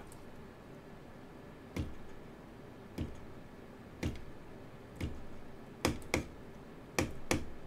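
Knuckles knocking on a small sound-sync RGB controller box, eight sharp taps: about one a second, then two quick pairs near the end. The knocks are picked up by the box's built-in microphone and make the case's lights flash.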